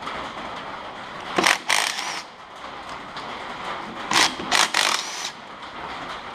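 Cordless impact driver running in two short spells on exhaust manifold nuts, about a second and a half in and again about four seconds in, each spell a few quick bursts with a faint motor whine.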